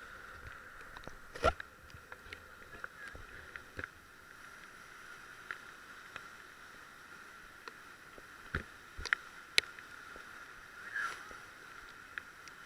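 Inflatable raft on a river between rapids: a quiet, steady wash of water with a few short, sharp splashes or knocks from paddles, one about a second and a half in and a cluster of three near the end.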